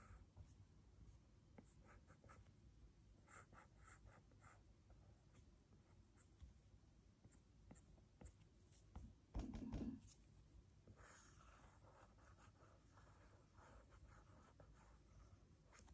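Faint taps and scratches of a stylus drawing on an iPad's glass screen, with one brief low thump a little past halfway.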